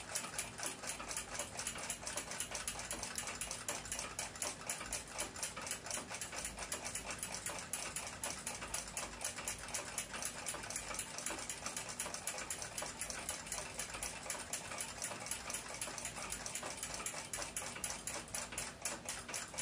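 Rapid, steady ticking of a running clock, evenly spaced clicks that continue without a break.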